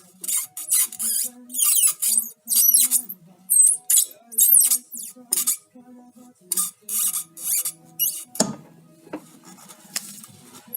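BMW E46 320d cardan shaft universal joint creaking in a series of short, high squeaks, with a dull knock about eight seconds in. The squeaking is the sign of the worn universal joint at the differential end of the shaft.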